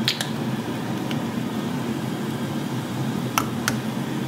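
A steady low mechanical hum runs throughout. Two sharp clicks come right at the start, and two more come about three and a half seconds in as the plastic cap of an olive oil bottle is worked open.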